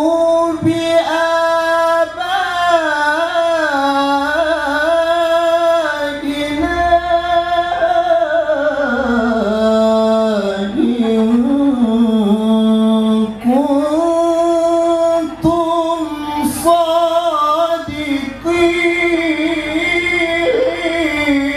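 A man reciting the Quran in the melodic tilawah style, singing long, drawn-out phrases with ornamented, wavering pitch and brief pauses for breath, heard through a microphone.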